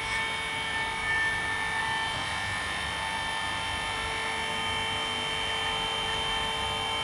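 Steady mechanical hum with a high, even whine, unchanging throughout.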